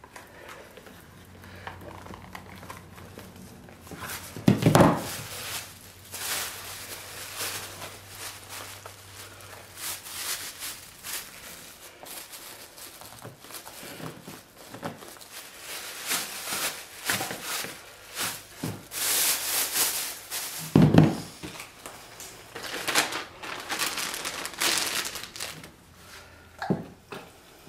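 Thin plastic wrapping crinkling and rustling in repeated bursts as it is pulled off a leather holster on the bench. There are two heavy thunks, about five seconds in and again around twenty-one seconds, and a lighter knock near the end.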